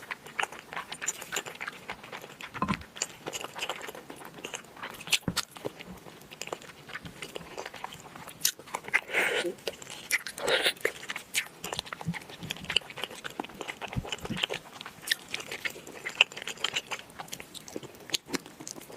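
A person chewing and biting food close to the microphone, with a steady run of irregular wet clicks and smacks from the mouth.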